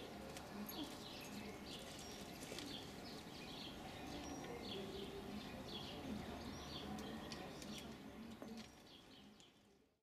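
Faint chirping and twittering of small birds over a low background rumble, fading out near the end.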